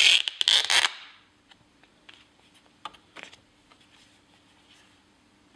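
Stiff plastic packaging crinkling for about a second as the sat-nav is lifted out of its clear plastic tray, followed by a few faint clicks and taps as the unit is handled.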